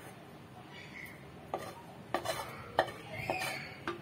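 Steel spoon scraping thick cooked ragi dough out of a steel kadhai into a steel bowl. From about a second and a half in come several sharp metal clinks and scrapes.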